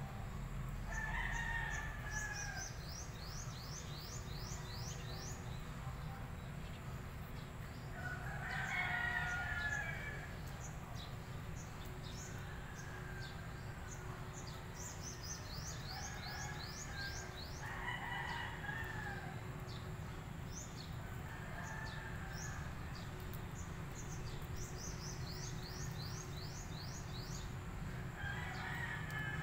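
A rooster crowing repeatedly, the loudest crows about every nine seconds with fainter ones between, over a steady low rumble and runs of rapid high-pitched ticking.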